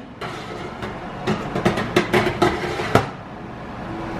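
Metal oven rack clattering as it is pulled out and moved to a lower shelf: a run of sharp metallic clicks and knocks over about two seconds, then it goes quiet.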